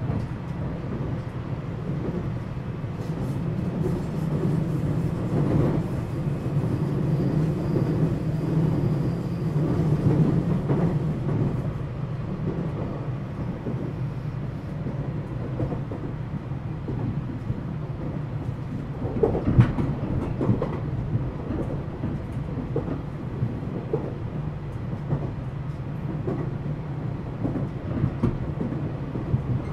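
Steady running noise of a JR West 227 series electric train, heard from inside its motor car KuMoHa 227-68: a continuous low rumble with a few sharp clacks, the loudest about 19 seconds in.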